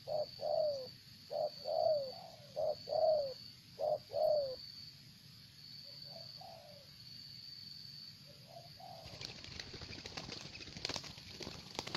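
A dove cooing: a short note followed by a longer falling note, repeated about every second and a half through the first four seconds, then twice more, fainter. Rustling and clicking in the last three seconds.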